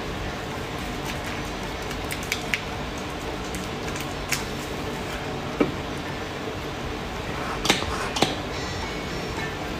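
Hands rubbing foaming face cleanser over the face and between the palms, with several short clicks and taps; the loudest come in the second half.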